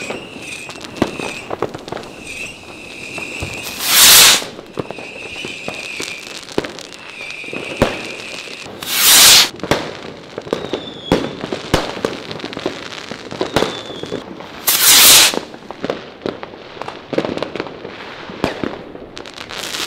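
Fireworks going off: a constant crackle of pops and bangs, broken by three loud half-second bursts about five seconds apart. A thin high whistle comes and goes during the first eight seconds.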